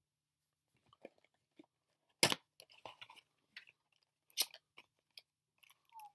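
A cardboard toy box and its packaging being handled and opened: scattered crackles and clicks, with a sharp snap about two seconds in and another a little after four seconds.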